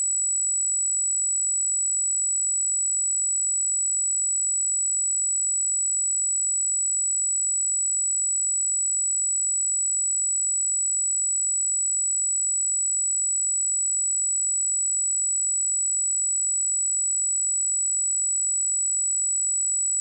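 A single steady 7864 Hz sine-wave test tone, a constant high-pitched whistle at an even level, used for checking speakers or headphones.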